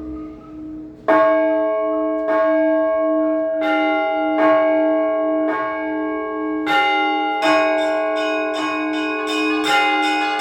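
Orthodox church bells rung by a bell ringer for a service. A large bell's low hum carries on underneath. From about a second in, smaller bells start striking at several pitches. The strokes come about one a second at first and get quicker toward the end, each note ringing over the next.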